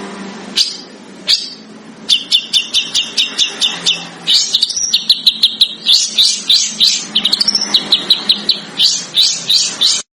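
A songbird gives a few separate sharp notes, then fast runs of short, harsh, high chip notes, several a second, with brief breaks between runs. A faint low hum runs underneath.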